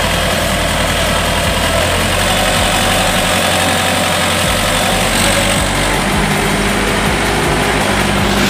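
Trakstar 545 tractor's diesel engine running steadily while its hydraulics raise a tipping trailer full of mud to unload it.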